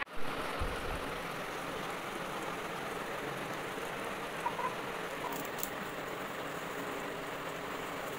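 A steady, even hiss of background noise, with a brief low thump just after the start.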